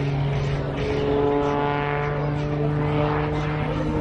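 Aerobatic biplane's piston engine and propeller droning in flight overhead as a steady, pitched drone whose tone shifts a little during the manoeuvre.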